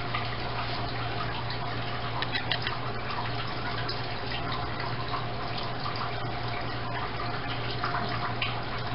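Kitchen faucet running steadily, water filling a metal pot in the sink, with a few light clinks.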